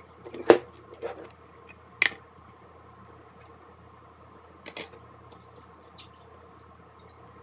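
Handling of a partly opened tablet on a work surface: a few sharp clicks and taps of its casing and parts, the loudest about half a second in and another about two seconds in, with smaller ones later, over a faint steady hum.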